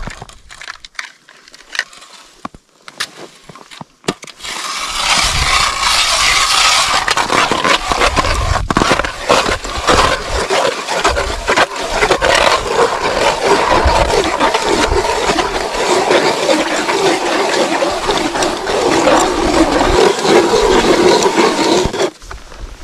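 Hand-cranked ice auger boring a hole through lake ice about 25 cm thick: the blades cut with a continuous scraping grind that starts about four seconds in and stops shortly before the end.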